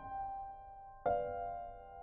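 Slow, sparse piano music: a chord struck about a second in, left to ring and fade.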